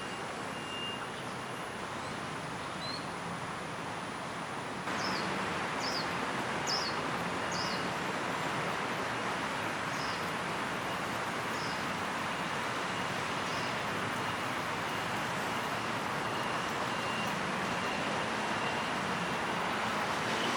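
Steady hum of city traffic, a little louder from about five seconds in, with a quick run of four high, falling bird chirps about six seconds in and a few fainter ones after.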